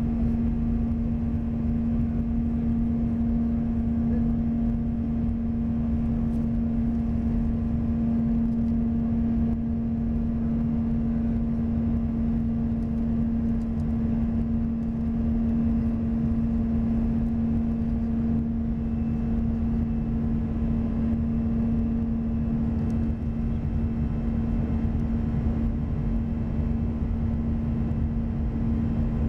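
Airbus A320's jet engines heard inside the cabin during the climb after takeoff: a steady drone with a strong, even hum over a low rumble.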